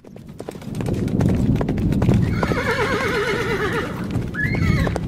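Sound effect of a horse galloping, rapid hoofbeats over a low rumble. A wavering whinny comes about two seconds in, and a short neigh near the end.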